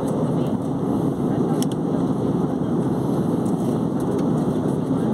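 Steady cabin noise of a jet airliner in cruise: engine and airflow noise heard from inside the cabin, a constant deep rush.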